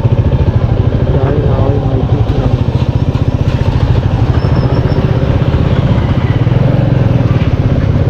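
Royal Enfield Meteor 350's single-cylinder engine running at low road speed, its exhaust beat an even, rapid pulsing.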